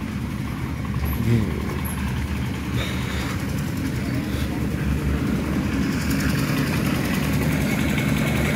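A motor vehicle's engine running steadily, a low, even drone with no break.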